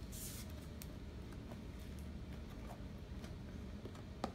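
Light rustling and faint clicks of cardboard-and-plastic toy-car boxes being handled, with a short rustle at the start and a sharper click near the end.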